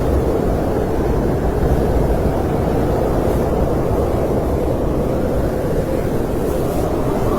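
Snowstorm wind: a steady, low rushing noise with no distinct gusts.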